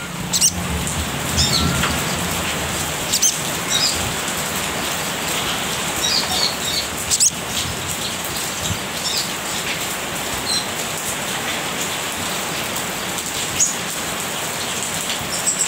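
Caged little spiderhunter (sogok ontong) giving short, sharp, high 'cet' chirps, scattered irregularly every second or few, over a steady hiss.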